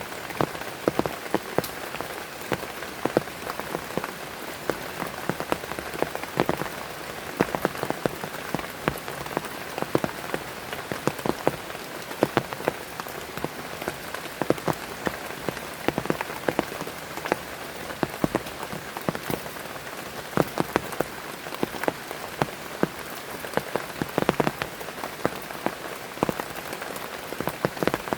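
Heavy rain falling, a steady hiss with many sharp, irregular drop hits close by.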